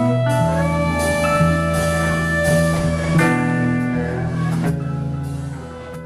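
Live rock band playing, with electric guitar, fiddle, keyboard, bass and drums. The drums stop about three-quarters of the way through and the music fades out over the last second or so.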